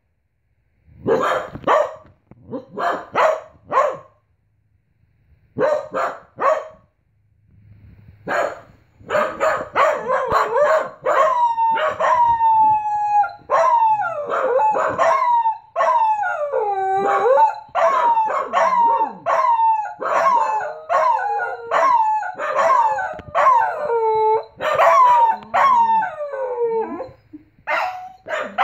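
Corgis barking in short bursts, then breaking into long howls that glide up and down in pitch from about nine seconds in, with calls overlapping.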